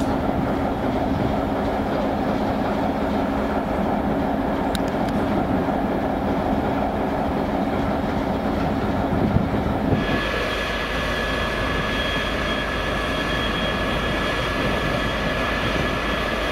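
Diesel engines of a 2TE25K 'Peresvet' two-section freight locomotive idling, a steady drone. About ten seconds in the sound changes abruptly, and a steady high whine comes in over the engine sound.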